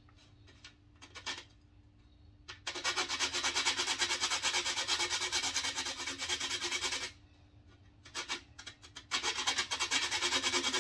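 Whole nutmeg being grated on a stainless steel box grater in rapid, even back-and-forth rasping strokes. A few short scrapes come first, then a long steady run of strokes, a brief pause with a couple of scrapes, and another run near the end.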